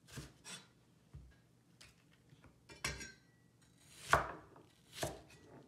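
Cleaver chopping through half a white onion and knocking on a plastic cutting board: about seven uneven chops, the loudest about four seconds in.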